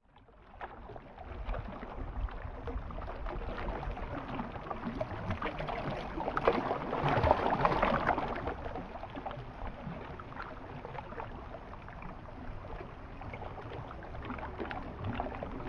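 Small waves on a lake lapping and splashing, fading in from silence at the start and loudest about seven seconds in.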